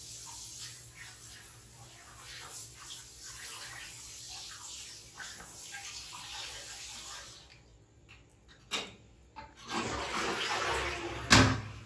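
Handheld bidet sprayer hissing and splashing water over a toilet bowl as a small animal is rinsed under it. The spray stops about seven and a half seconds in; after a click, a louder rush of water follows, and a sharp knock sounds near the end.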